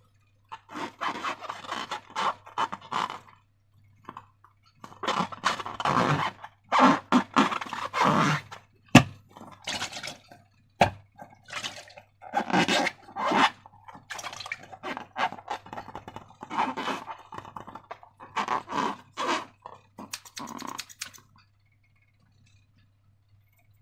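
Slime being handled and squished: irregular sticky, wet crackling and squelching, with two sharp clicks partway through.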